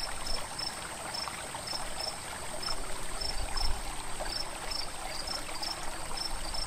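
Tropical insect chorus: a steady high trill with a short cricket-like chirp repeating about three times a second, over the even hiss of running water.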